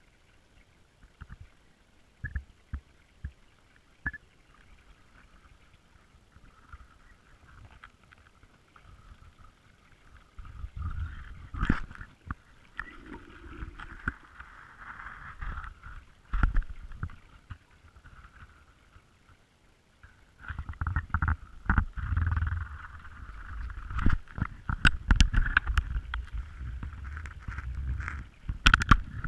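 Muffled underwater sound heard through a submerged GoPro's waterproof housing as it is moved on a magnet-fishing line: a few faint clicks at first, then about ten seconds in, bouts of low rumbling water movement with many knocks of the rope and cable against the housing.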